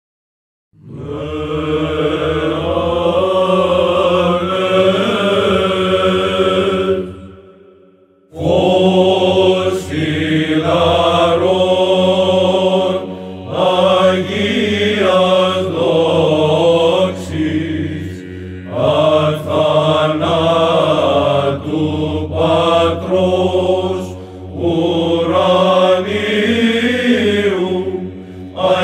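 Byzantine ecclesiastical choir chanting a Greek hymn, with melody lines moving over a steady held drone note (the ison). The chant begins about a second in and breaks briefly about a quarter of the way through before continuing.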